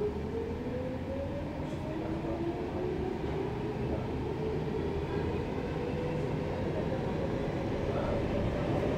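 Stockholm Metro C14 train pulling out of a station, heard from inside the car. The traction motors' whine rises steadily in pitch as the train gathers speed, over the low rumble of the running gear.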